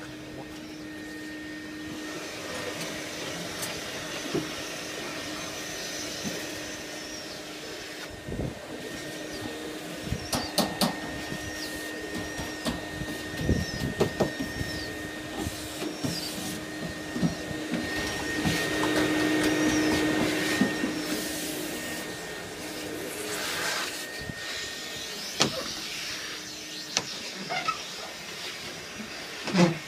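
Electric wall exhaust fan running with a steady motor hum that grows louder for a few seconds about two-thirds of the way through, with scattered clicks and knocks from handling.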